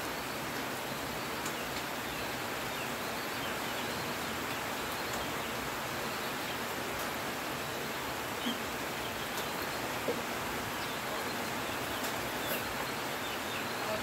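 Heavy rain falling steadily on dense foliage and a corrugated metal roof, an even hiss, with a couple of brief faint sounds over it about eight and ten seconds in.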